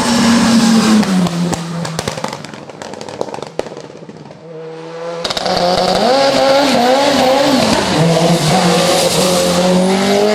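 Mitsubishi Lancer hillclimb prototype's race engine at full throttle. It fades away over the first few seconds, then comes back loud and suddenly about five seconds in, its pitch wavering up and down for a couple of seconds before running steady again.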